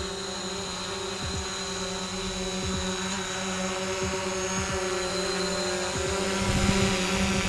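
DJI Mavic Pro quadcopter hovering: a steady propeller hum and whine, not that loud, with irregular low thumps underneath and growing a little louder near the end.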